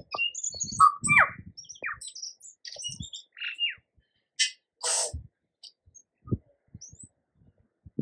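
Tūī singing: a quick, varied run of short notes, clicks and fast pitch glides, with a short noisy rasp about five seconds in, then only a few scattered notes.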